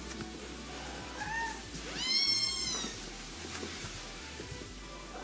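A cat meowing: a short, faint call about a second in, then one longer, high-pitched meow that rises, holds and falls about two seconds in.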